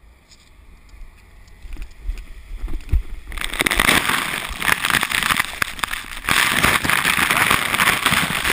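A person plunging into a pit of muddy water and splashing through it. Loud sloshing and churning of water runs right against the camera from about three seconds in, after a few quieter seconds.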